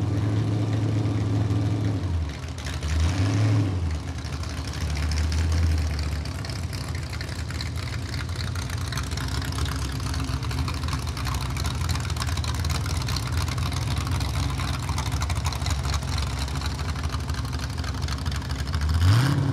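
Mini modified pulling tractor's engine idling after its pull, blipped briefly about three seconds in, then running steadily as the tractor drives off, with a quick rising rev at the very end.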